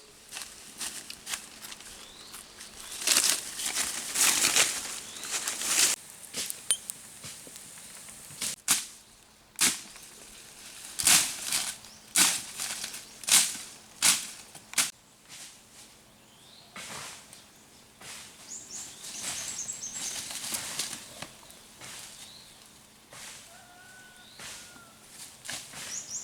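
Irregular rustling and crackling handling noises with sharp snaps, busiest in the first half, followed by a few faint short chirps.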